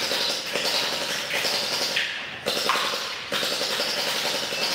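Electric Uzi-style gel blaster firing on full auto in several bursts with short breaks, its motor and gearbox rattling fast as it shoots gel balls, with their hits tapping on a metal target plate.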